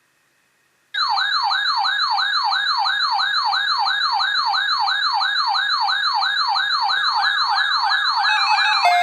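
Electronic yelp siren: a fast, even up-and-down wail, about three to four sweeps a second, starting about a second in. Near the end, the buzzing data bursts of an Emergency Alert System header begin underneath it.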